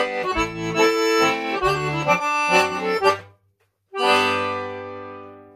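Bugari Armando piano accordion playing a mazurka, which breaks off about three seconds in. After a half-second gap, a final chord is held and fades away.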